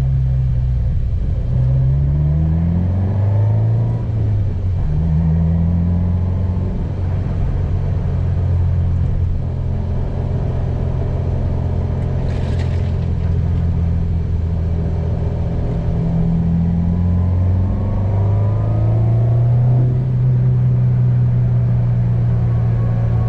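2022 Subaru WRX's turbocharged 2.4-litre flat-four, fitted with an ETS Garrett G30-900 turbo kit and catback exhaust, driving with a low drone. The revs climb and drop a few times as it accelerates and shifts, with a brief hiss about halfway through, then hold steady near the end.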